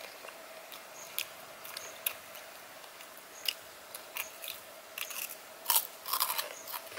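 Close-up crunching and chewing of crisp fried food: scattered sharp crackly bites, coming thicker and louder over the last two seconds.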